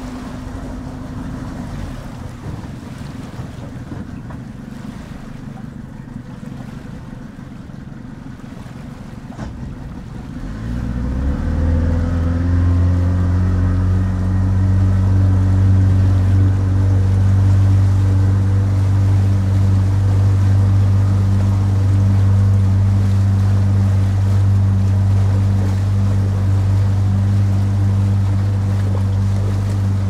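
Surf and wind noise, then about ten seconds in a low, steady engine hum from a boat swells up, rising briefly in pitch, and holds over the surf as the loudest sound.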